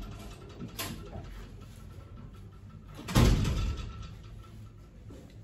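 A door shutting with a loud thud about three seconds in, after a lighter click about a second in, over low room noise.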